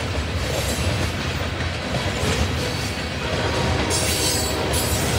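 Covered hopper cars of a BNSF grain train rolling past, a steady rumble of steel wheels on rail. A brief high squeal comes about four seconds in.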